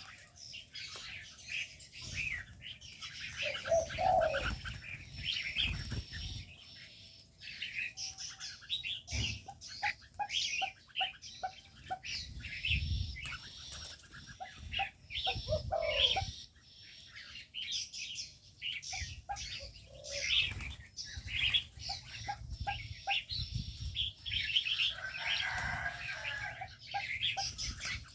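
Aviary birds: many small birds chirping continuously, with repeated soft wing flaps and runs of short low notes from spotted doves cooing.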